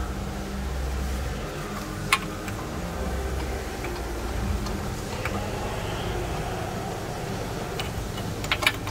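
Sharp plastic clicks from the downstream O2 sensor's electrical connector being pried and unclipped: one about two seconds in, another around five seconds, and a quick pair near the end, over a steady low hum.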